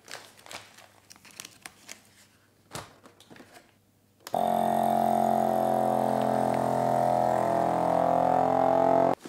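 Plastic vacuum bag rustling, with a few light clicks, as it is set into a Laica vacuum sealer. About four seconds in, the sealer's pump starts with a loud, steady droning hum as it draws the air out of the bag, then cuts off sharply near the end.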